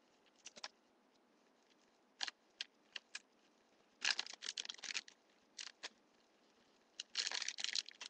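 Thin plastic carrier bag worn over the head crinkling in short bursts as a hand grips and adjusts it at the face, with a few single crackles and two longer crinkling spells, about four and seven seconds in.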